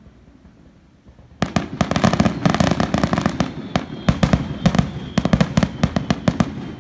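Aerial fireworks exploding: after a quiet second or so, a rapid run of sharp cracks and bangs that keeps going for about five seconds.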